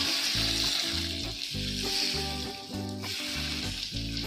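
Hot mustard oil poured over raw masala of sliced onion, tomato and spices, sizzling hard as it hits. The sizzle eases about two and a half seconds in, then rises again. Background music with a steady beat plays underneath.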